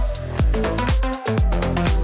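Electronic dance music with a steady four-on-the-floor kick drum and synth chords.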